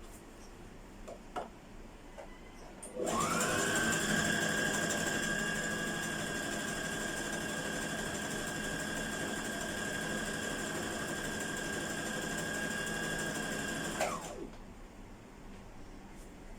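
Brother electric sewing machine stitching hair wefts together to double them: a few light clicks, then about three seconds in the motor speeds up with a rising whine, runs steadily for about eleven seconds, and winds down near the end.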